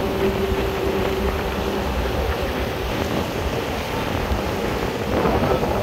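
Tugboat under way: its engine running steadily under wind buffeting the microphone and water rushing along the hull. A faint steady hum fades out about two seconds in, and the noise grows a little louder near the end.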